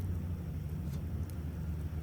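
Wood bonfire with a few faint crackles about a second in, over a steady low rumble.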